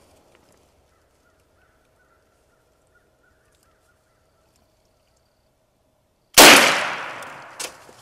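A single Mossberg shotgun blast about six seconds in, sudden and loud, trailing off over about a second, with a short sharp knock about a second later. Before it, near quiet with only a faint steady tone and faint chirps.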